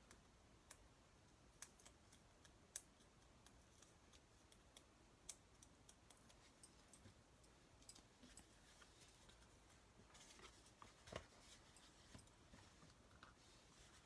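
Near silence, with faint scattered ticks and light rustling from handling a small cardstock piece with foam adhesive dimensionals and pressing it onto a card.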